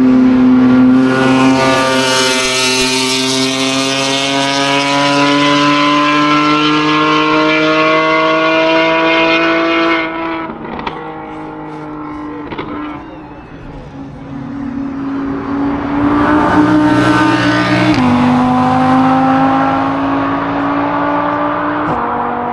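Race car engine at high revs accelerating hard up a hill-climb course, its note climbing slowly. It fades after about ten seconds with a couple of sharp cracks, then comes back loud. The pitch drops sharply twice near the end as the car changes up a gear.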